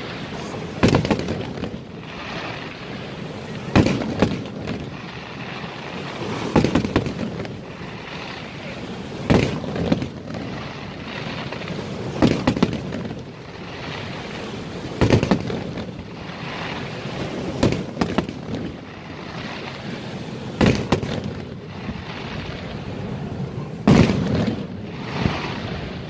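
Aerial firework shells bursting in a display, one loud boom about every three seconds, with a steady rushing noise between the bursts.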